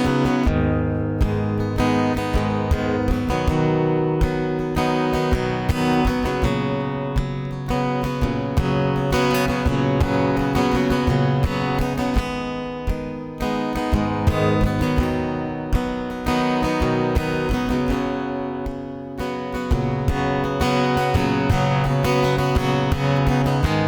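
Solo acoustic guitar strumming a steady chord pattern: the instrumental intro of a live singer-songwriter song, before the vocals come in.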